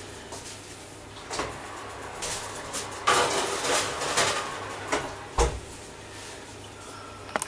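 Kitchen clatter as a foil-covered roasting tin is put into an oven: scattered knocks and clinks, a sliding scrape about three seconds in, and one heavier thump a little after five seconds.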